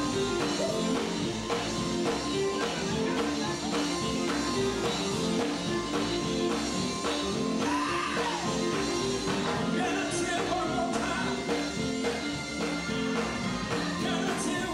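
Live gospel band music: electric guitars playing over a steady beat, with a voice singing.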